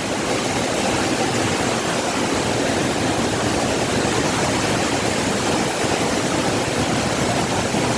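A waterfall's fast-flowing water rushing in a steady, loud roar of noise.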